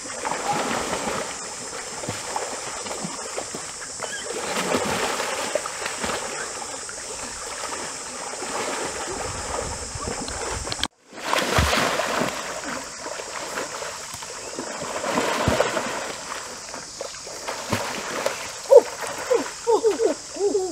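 Water splashing and sloshing as people wade, grapple and duck under in a shallow stream. The sound cuts out for a moment about eleven seconds in.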